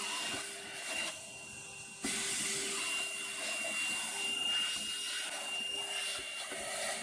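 Holife cordless handheld vacuum cleaner running, a steady whine and rush of air as it sucks up sawdust. It drops in level briefly about a second in, then comes back up and stops abruptly at the end.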